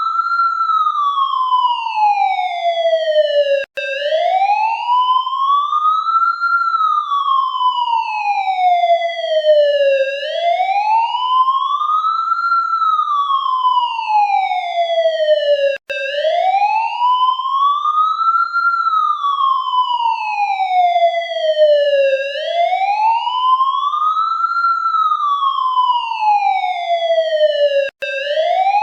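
Police siren sounding a slow wail, its pitch rising and falling about once every six seconds. Three very brief cuts come about twelve seconds apart.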